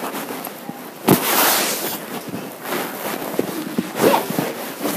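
A sudden rushing hiss starts sharply about a second in and fades after about a second, among scattered knocks and clicks of classroom handling.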